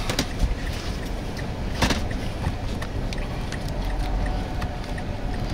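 Steady low rumble inside a vehicle, with a few sharp taps near the start and one just under two seconds in.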